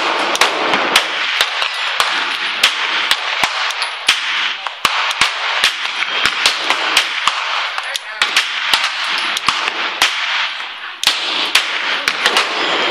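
Glock 17 9mm pistol firing subsonic Hush ammunition, a long string of sharp shots at irregular intervals. Fainter gunfire from other lanes of the range is mixed in.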